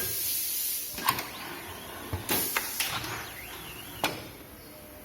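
Pneumatic automatic screen printing machine cycling: hisses of compressed air from its valves and cylinders, with several sharp mechanical clacks as the parts move and stop.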